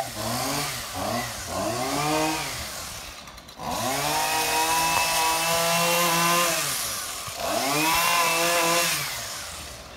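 A small engine revving up and down: several short revs, then a long held rev in the middle and another shorter one before it dies away near the end.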